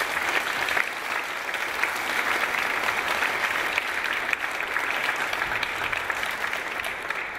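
Audience applauding: many people clapping steadily, fading away just as it ends.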